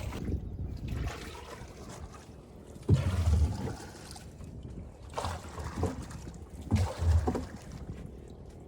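Oars of a small rowboat pulling through lagoon water, a stroke about every two seconds, with water trickling between strokes.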